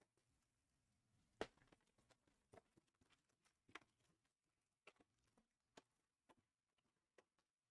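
Faint scattered taps and clicks of trading card packs and their cardboard hobby box being handled, the packs set down one on another into a stack; the sharpest tap comes about a second and a half in.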